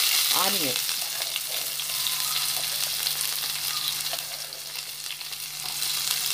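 Chopped onion sizzling in hot coconut oil with frying mustard and cumin seeds, a steady hiss loudest as the onion goes in and easing a little after the first second.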